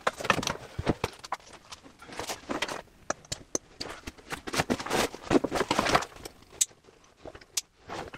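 Backpacks being handled and hung up inside a wooden cupboard: rustling fabric and straps with irregular knocks and clicks against the wood.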